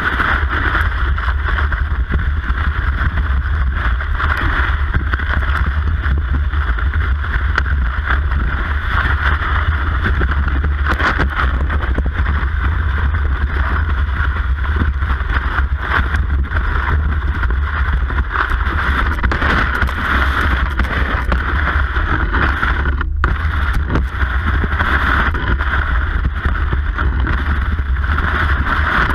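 Cross-country skis gliding and scraping along set classic tracks in snow, a steady rushing hiss with a low rumble, heard through a camera mounted on the ski itself. The sound cuts out for a moment about two-thirds of the way through.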